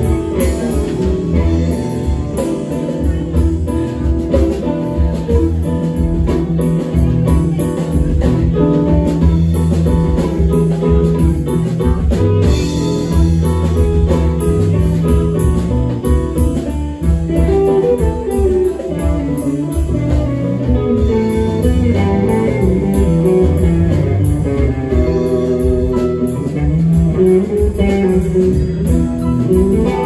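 Live rock band playing: two electric guitars over electric bass, drum kit and electric keyboard.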